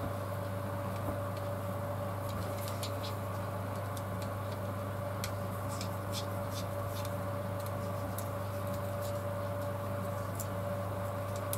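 Faint small ticks and scratches of tiny plastic gimbal cover parts being handled and fitted by hand, over a steady hum.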